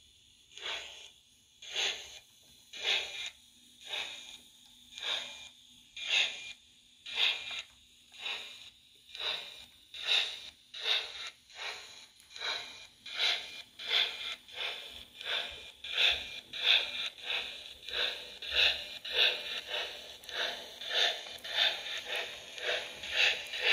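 HO scale model of a South Australian Railways F class steam tank locomotive, its built-in sound playing steam exhaust chuffs through a small speaker. The chuffs come about once a second at first and quicken to about two a second as the engine picks up speed.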